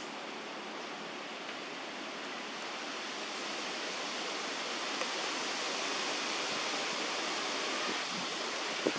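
Steady outdoor rushing noise, an even hiss with no pitch, growing a little louder about three seconds in, with a small click about five seconds in and a short sharp sound near the end.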